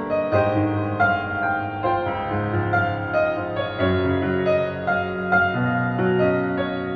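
Solo piano music: a slow melody with new notes struck about once or twice a second over held low chords.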